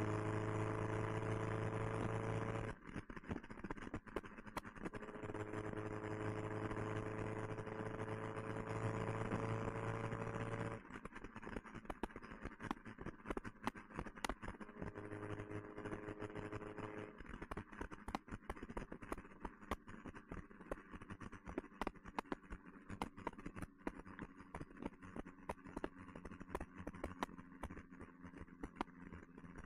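1969 Alfa Romeo Spider's twin-cam four-cylinder engine running at road speed through an Alfaholics exhaust, its note climbing slowly as it pulls, then dropping away off the throttle, twice. Later the engine fades under a rushing noise with many short crackles.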